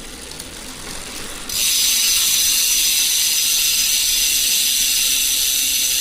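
Bontrager bicycle rear freehub coasting as the wheel spins. It starts as a faint fast ticking of the pawls, then about one and a half seconds in it jumps to a loud, steady, high-pitched ratcheting buzz.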